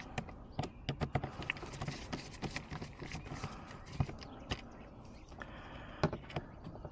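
Irregular clicks and taps of hand tools and parts being worked on a car door's handle assembly, closely spaced in the first couple of seconds, with two louder knocks about four and six seconds in.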